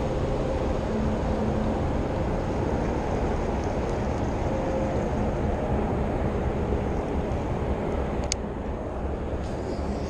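Wind buffeting an open-air microphone: a steady low rumble, with a faint hum that fades in the first few seconds and a single sharp click about eight seconds in.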